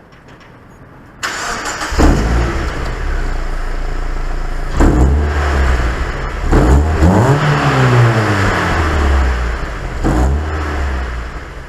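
Mazda MX-5's four-cylinder engine accelerating hard and revving, its pitch climbing several times, as heard from inside the car. A rushing road and wind noise rises suddenly about a second in.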